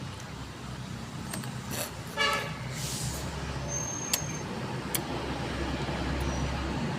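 Low steady rumble of passing road traffic that grows louder in the second half, with a brief horn toot about two seconds in and a few sharp clicks.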